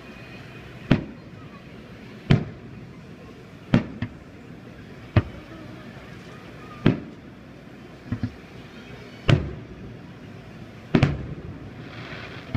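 Aerial fireworks shells bursting overhead: about ten sharp booms, roughly one every second and a half, each trailing off in a short rumbling echo, with two doubled bangs in quick succession. Near the end a burst is followed by a brief crackling.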